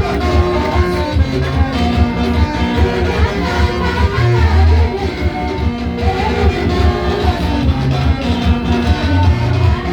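Upbeat praise music with guitar, a steady bass beat and some singing.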